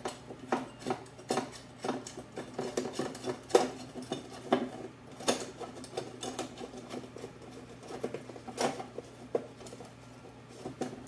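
Irregular metal clicks and clinks as a bolt, washers and a nut are handled and the nut is threaded on, putting together a homemade sheet-metal shrinking tool.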